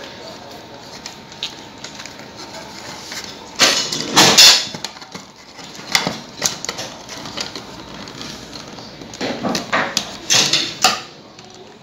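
Handling noise as a double-pole miniature circuit breaker is fitted into its plastic box and its terminal screws are worked with a screwdriver: scattered knocks, clicks and rattles of plastic and metal. The loudest clusters come about four seconds in and again near the end.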